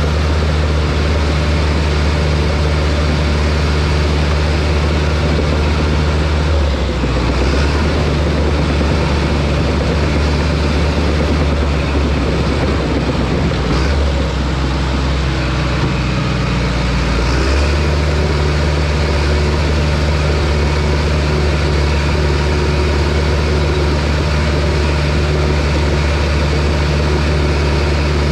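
John Deere bulldozer's diesel engine running. Its note shifts from about seven seconds in, as the machine works under changing load, and settles back to the steady note after about ten seconds.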